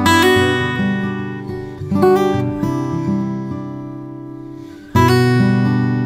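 Background music: acoustic guitar chords strummed and left to ring out, with fresh chords about two and five seconds in.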